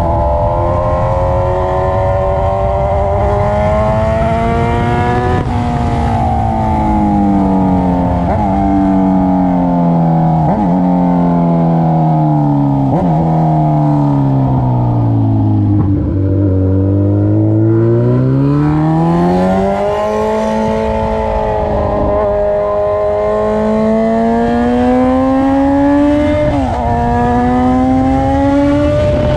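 Kawasaki Z900's inline-four engine running through aftermarket headers and a bare pipe with no muffler, loud and unmuffled. The revs fall steadily, with a few brief blips, to a low point about halfway through. Then the engine pulls back up under acceleration, with a gear change near the end.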